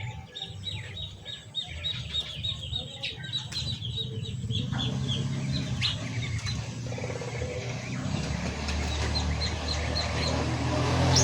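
Small aviary songbirds chirping in quick repeated notes, thinning out after the first few seconds. A low steady rumble builds underneath and is loudest near the end.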